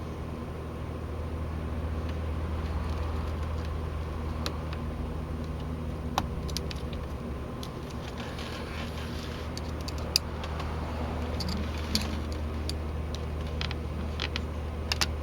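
Small screwdriver prying at the snap-in plastic cap of a Mercedes W202 wiper switch stalk: scattered sharp clicks and faint scraping, with a quick cluster of clicks near the end as the snaps let go. A steady low hum runs underneath.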